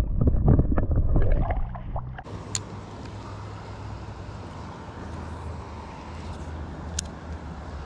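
About two seconds of loud, low knocking and rumble close to the microphone, then a sudden change to the steady rushing wash of a flooded, fast-moving creek, with a faint low rumble under it and two soft clicks.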